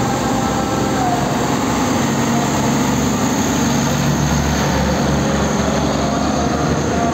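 Diesel engine of a container tractor-trailer running as the truck passes close by, a low rumble loudest about four to six seconds in, over steady road traffic noise.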